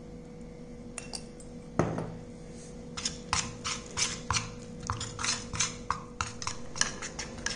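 Metal spoon clinking and scraping against a small stainless-steel bowl while stirring ghee into rice flour to make a paste: one knock about two seconds in, then quick taps about three to four a second.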